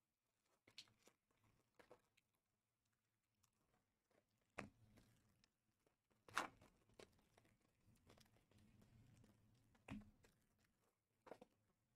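Faint handling of trading cards: a scattering of soft snaps and rustles as thick cards are moved and sorted, the sharpest snap about six seconds in.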